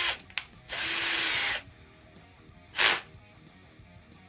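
Tramontina 10.8 V cordless drill/driver running in three trigger pulls while driving a coarse screw into wood with a socket bit: a short burst at the start, a steady run of nearly a second starting just under a second in, and a brief final burst near three seconds.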